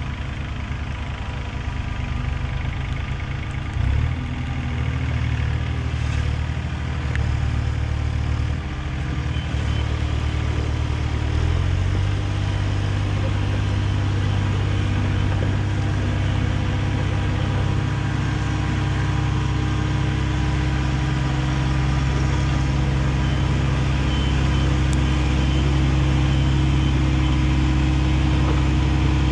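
Diesel engines running steadily: an IHI 30VX mini excavator working and a Mahindra 1626 compact tractor driving up. The engine sound grows gradually louder, with a heavier low hum from about a third of the way in.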